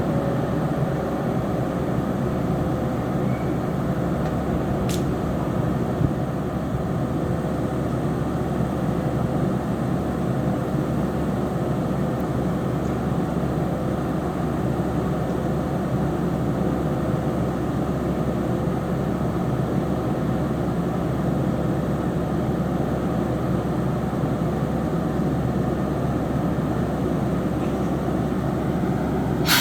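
ÖBB class 1144 electric locomotive's cooling blowers running with a loud, steady drone. This is the fan noise that earns the class its nickname 'Alpenstaubsauger' (Alpine vacuum cleaner).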